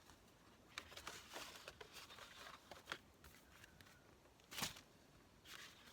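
Faint rustling and light tapping of paper cards being handled and pulled from a stack, with one sharper tap about four and a half seconds in.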